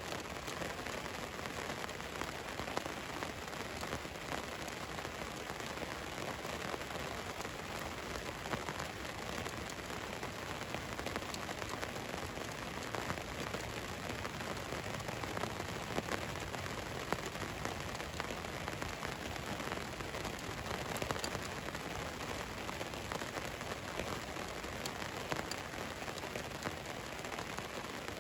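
Steady rain falling on a van's roof, an even hiss with many small drop ticks scattered through it.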